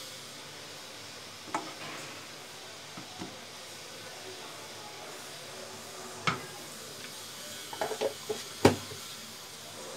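A utensil knocks a few times against a plastic food container as noodles are dropped in, with a sharp knock about six seconds in. Near the end a plastic lid is pressed onto the container in a quick cluster of clicks and snaps. A steady low hiss runs underneath.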